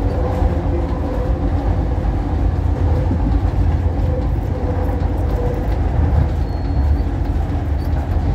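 SEPTA Market-Frankford Line train running along elevated track, heard from inside the car as a steady, loud low rumble of wheels on rail and running gear.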